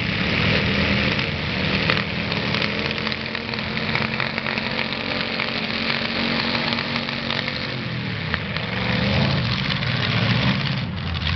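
Several demolition derby cars' engines running together in a steady, rough din, with one sharp bang about two seconds in.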